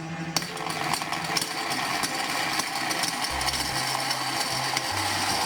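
Toy blender's small motor running with a dense rattle of gumballs inside; the noise starts sharply at the outset and holds steady.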